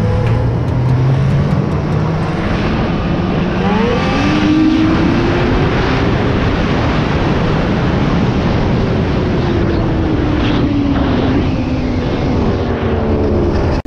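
Snowmobile engine running while riding, revving up about four seconds in and then slowly easing off, over a steady rushing noise.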